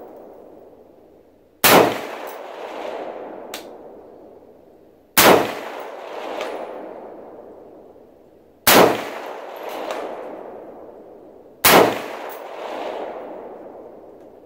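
AR-15 rifle in .223 Wylde firing four single, evenly paced shots about three and a half seconds apart. Each loud crack is followed by a long echo and a fainter second sound about a second later.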